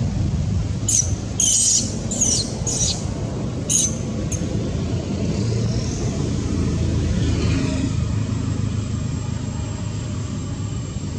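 About five short, shrill squeals from a long-tailed macaque, one after another in the first few seconds, over a steady low rumble.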